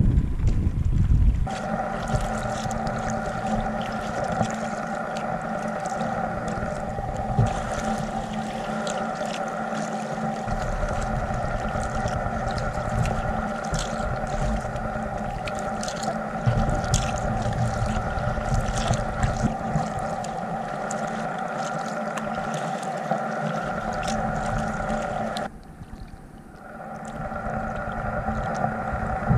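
A steady hum of several fixed tones, like a small motor, over irregular splashing and dripping water around a moving kayak. The hum cuts out briefly near the end, then starts again.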